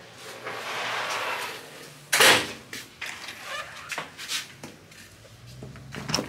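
A metal mesh security door is opened, with one loud bang about two seconds in. A few light clicks and knocks follow from the front door's latch and knob.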